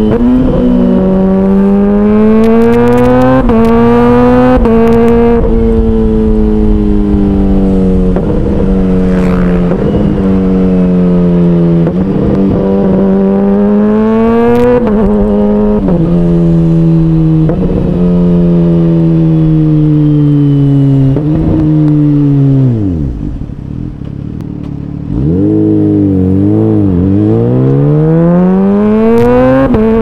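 Kawasaki Ninja H2's supercharged inline-four engine running under way, its note rising and falling with the throttle. About three quarters through, the pitch drops steeply and the sound quietens as the throttle closes. A few quick revs follow, then the pitch climbs steadily again near the end as it accelerates.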